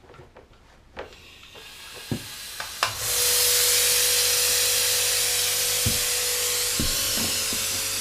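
A refrigeration vacuum pump switches on about three seconds in and runs steadily with a loud hiss and a low electric hum as it begins evacuating the refrigerator's newly soldered system. A few knocks and clicks come before it as the hose fittings are handled.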